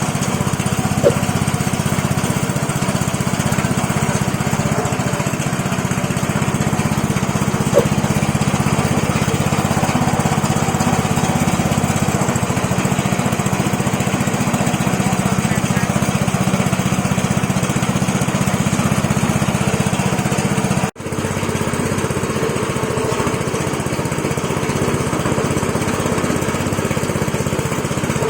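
Tapioca rambak cracker cutting machine running steadily with a loud motor hum. The sound drops out for an instant about two-thirds of the way through.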